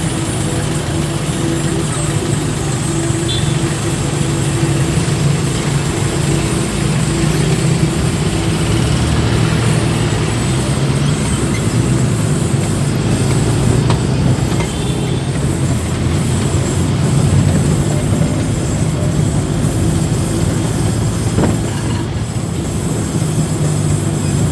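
A moving vehicle's engine and tyre noise, a steady low hum with an even road rush that holds without break.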